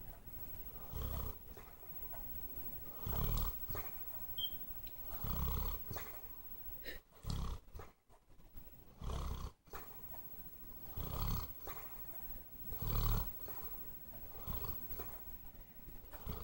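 A dog snoring, one deep snore about every two seconds.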